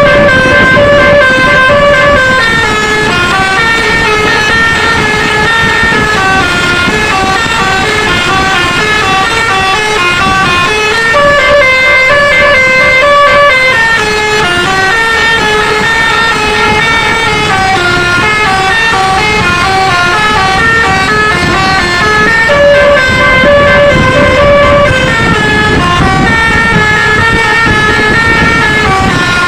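Telolet basuri horn on a QQ Trans tour bus playing a tune of stepped, held notes, an air-horn melody whose phrase starts over about every eleven seconds.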